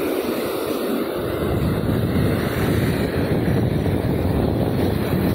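Rough Pacific surf breaking and washing up the beach: a loud, steady rush of waves, with wind buffeting the microphone.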